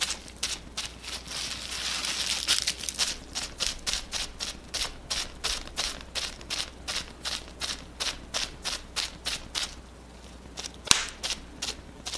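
Scrunched-up, paint-loaded bubble wrap dabbed again and again onto paper: quick crinkly taps about three a second, with one sharper click near the end.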